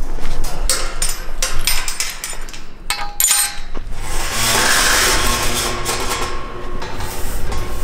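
Galvanised tubular steel farm gate being swung shut and fastened: repeated metal knocks and rattles, with a ringing clang about three seconds in. A broad rushing noise follows in the second half.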